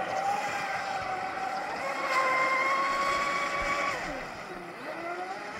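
Pro Boat UL19 radio-controlled hydroplane on a 6S battery, its brushless electric motor whining at speed over the water. The pitch steps up a little about two seconds in and holds. Around four seconds it falls away sharply, then climbs again near the end.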